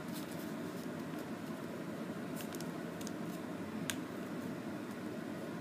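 Origami paper being folded and creased by hand on a tabletop: soft paper rustling with a few faint crinkles, the sharpest about four seconds in, over a steady background hiss.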